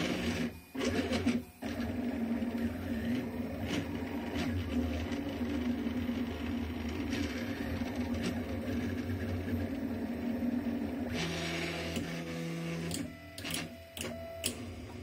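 Delta 3D printer printing, its stepper motors running with a steady whirring hum as the print head moves around the part. The sound drops out briefly twice near the start, and near the end breaks into a few short tones and clicks.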